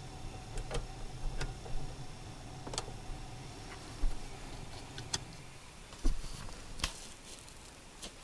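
Scattered sharp clicks and a few louder knocks, irregularly spaced, over a faint steady low hum in a car cabin.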